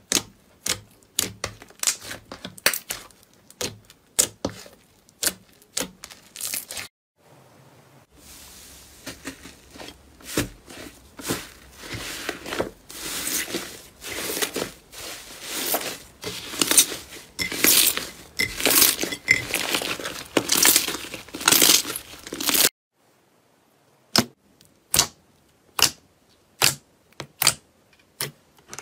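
Fingers poking and squeezing slime, making sharp pops and clicks at first, then a long stretch of dense crackly squishing that stops abruptly. Separate pops start again after a short gap.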